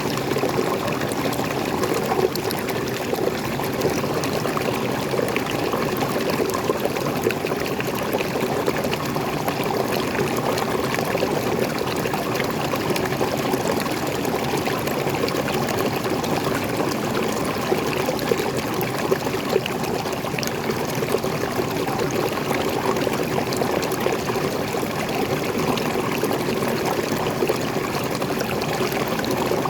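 Forest waterfall, water splashing and running steadily.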